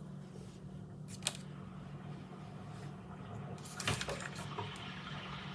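Scissors and a plastic lentil bag being handled: a single sharp click a little over a second in, then a brief crackle of plastic about four seconds in, over a steady low hum.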